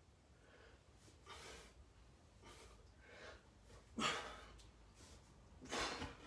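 A man breathing hard with exertion: a string of short breaths, about one a second, the strongest about four seconds in and another near the end.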